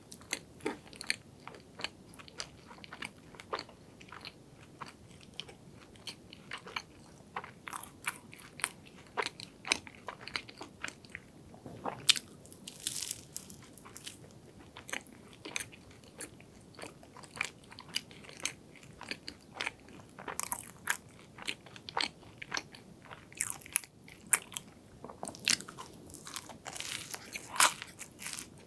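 Close-miked crunching and chewing of crisp croffle, croissant dough baked in a waffle iron: a constant run of sharp crackles from the crust as it is bitten and chewed, thickening into denser bursts of crunching a few times.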